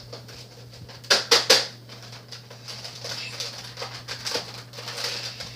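Nerf Elite Rampage pump-action blaster being worked without firing: three sharp plastic clacks in quick succession about a second in, then a few fainter clicks. It fails to shoot because the drum magazine is not seated all the way.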